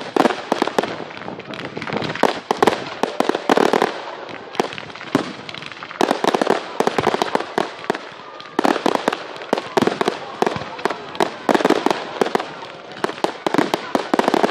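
Fireworks display: rapid volleys of bangs and crackling from aerial shells launching and bursting, coming in several dense waves with short lulls between them.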